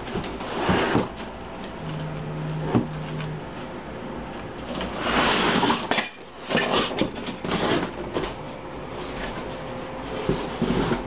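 Cardboard box and plastic-wrapped weight-bench parts being handled: irregular rustling and scraping with scattered knocks, and a brief low hum about two seconds in.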